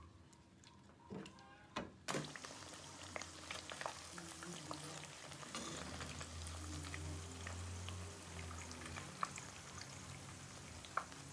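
Breaded chicken katsu cutlets shallow-frying in hot oil in a wok: a steady hissing sizzle full of small crackles, which starts abruptly about two seconds in. Before it, a couple of light taps from a silicone spatula stirring a sauce in a small saucepan.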